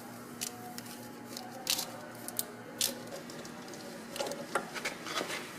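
Handling noise from work on wiring and parts: a few sharp clicks and taps, then some rustling and scuffing near the end, over a faint steady hum.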